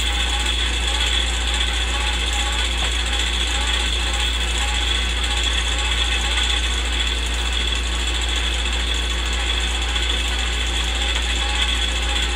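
Old film projector running, an added sound effect: a steady mechanical whirr and clatter over a low hum.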